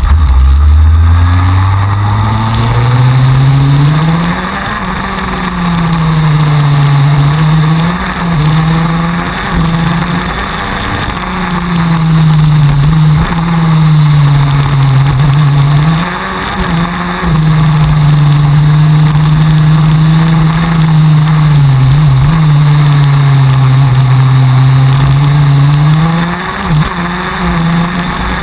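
TM 125cc two-stroke engine of a KZ2 gearbox kart heard from on board, pulling away from the start with its pitch climbing steeply. It then rises and falls over and over as the kart is shifted up through the gears and braked into corners, with sudden drops in pitch at the shifts and lifts.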